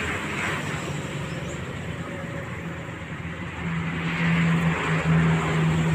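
Passing motor traffic: a vehicle engine's steady hum, growing louder about four seconds in.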